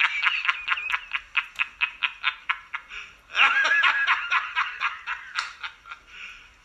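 High-pitched cackling laughter in rapid pulses, about seven a second, then a second, fuller burst of laughing about three and a half seconds in that trails off in smaller and smaller bursts.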